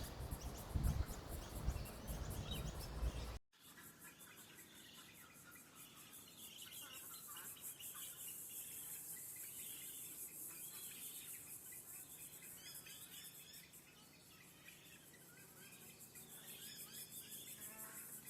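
A loud low rumble for the first few seconds. After a sudden cut comes a quiet outdoor scene: a steady, high, rapidly pulsing insect chirr, with scattered bird calls over it.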